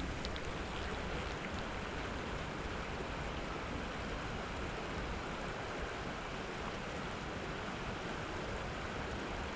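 Steady rush of a flowing creek, an even, unbroken noise with no distinct events.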